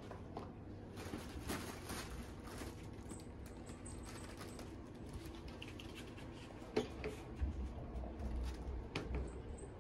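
Soft rustling and scattered light taps of cats moving about a fabric pop-up play tunnel on foam floor mats, with one sharper click about seven seconds in and a low rumble in the latter part.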